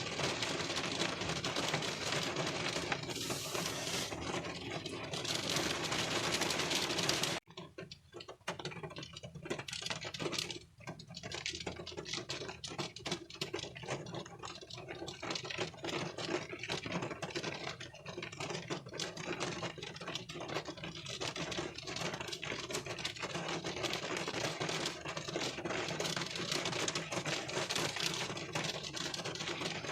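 Raindrops pattering on a car windshield, heard from inside the car: a dense stream of small ticks that cuts off abruptly about seven seconds in, then returns as a sparser patter that builds back up.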